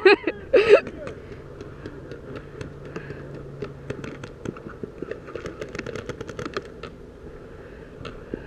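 Paintball markers firing out on the field: scattered sharp pops, with a quick run of shots through the middle.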